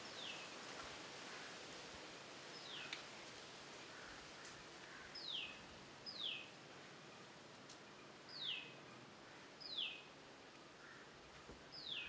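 Barbet nestling at its tree-hole nest giving short, high calls that each slide downward, seven in all, one to two and a half seconds apart, over a faint steady outdoor hiss.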